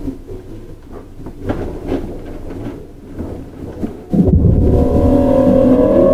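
Keihan 9000 series train heard from inside: a low running rumble with a few knocks, then about four seconds in the Toyo GTO-VVVF inverter cuts in suddenly. It gives a loud whine of several tones rising slowly in pitch as the motors take power and the train accelerates.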